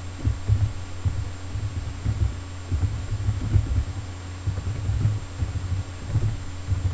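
Typing on a computer keyboard, heard as irregular dull low thuds carried through the desk to the microphone, over a steady low electrical hum.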